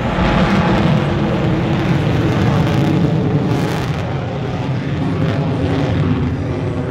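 F-35 Lightning II jet flying overhead, its single F135 turbofan engine making a loud, steady rushing noise. The noise comes in suddenly at the start and slowly eases off.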